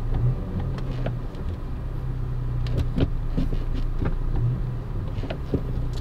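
Volkswagen MK6 GTI's 2.0-litre turbocharged four-cylinder idling steadily, heard from inside the cabin, with scattered clicks and clunks from the new Spulen short shifter being worked through the gate. The lever is being moved in search of reverse, which will not engage after the short-shifter install.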